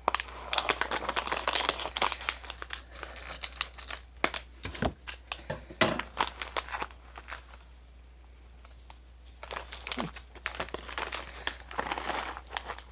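Plastic snack packet of Ding Dong Snack Mix crinkling as it is handled and opened, with a quieter gap of about two seconds partway through before the crinkling resumes.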